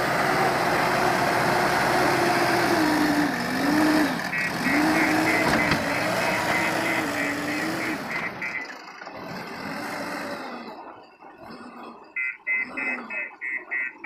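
JCB backhoe loader's diesel engine running loudly, its note dipping and recovering a few seconds in, with the machine's reversing alarm beeping rapidly as it backs up. The engine drops quieter after about eight seconds, and the beeping comes again near the end.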